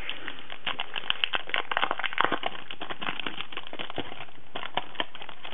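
Plastic sleeve of a clear-stamp packet crinkling and crackling as it is handled, an irregular run of small crackles that is busiest about two seconds in and thins out towards the end.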